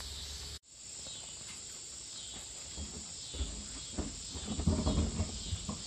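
Crickets chirping in a steady high trill, with soft low knocks and rustling from about three seconds in.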